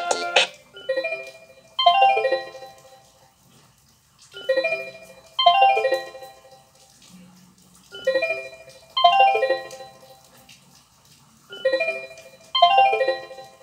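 A Kyocera DuraXE ringtone: a bell-like doorbell-style chime of two quick phrases, repeating about every three and a half seconds, four times.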